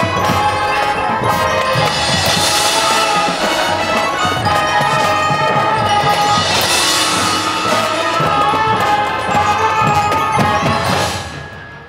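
Marching band of wind instruments and percussion playing loudly, with cymbal crashes at about 2.5, 7 and 11 seconds. The music cuts off near the end.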